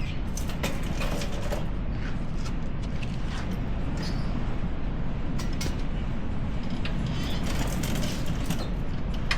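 Scattered metallic clinks and knocks of hand tools being worked on a truck, over a steady low hum.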